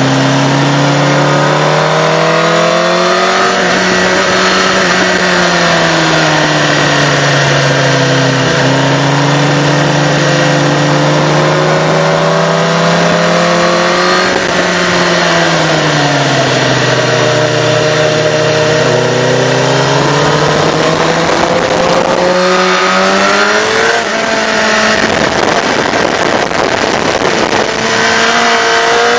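Sport motorcycle engine under hard riding, its pitch climbing as it accelerates and falling as it slows, in long sweeps. About three-quarters through comes a run of quick upshifts, each a short rise cut off by a drop, before the revs fall away and climb again near the end.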